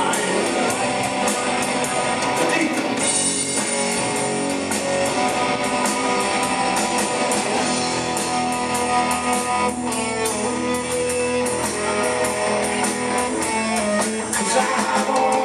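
Rock band playing live: two electric guitars, bass guitar and drum kit in a guitar-led instrumental stretch without singing.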